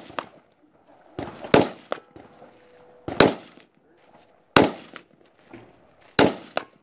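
Gunshots at a steady pace from a competitor shooting a stage some distance away: four shots about a second and a half apart, each with a short echo.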